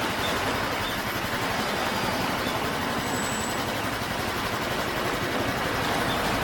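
Steady street noise of motor vehicles, such as trucks and cars, running at a road level crossing; no crossing bell is sounding.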